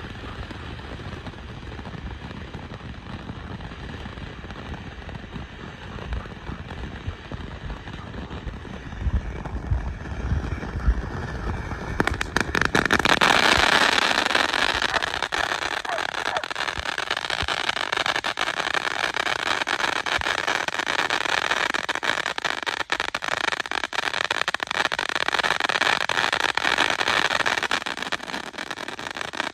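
Ground firework fountains hissing and crackling as they spray sparks, with a low rumble underneath at first. About twelve seconds in, the spray grows much louder, with dense crackling that keeps up steadily.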